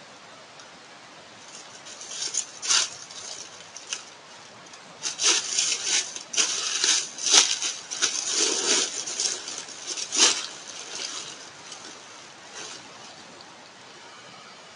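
A buck deer sneezing, a run of sharp, hissing bursts of breath forced out through the nose, coming thick and fast in the middle before tapering off.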